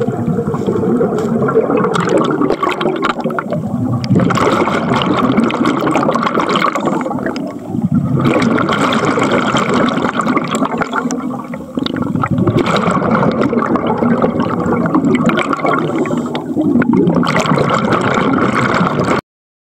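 Bubbles rising underwater, a loud bubbling and gurgling that comes in surges with brief lulls about every four seconds, then cuts off suddenly near the end.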